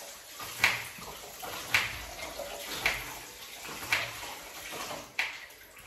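Water splashing in a bowl as hands wash a raw chicken, five splashes about a second apart.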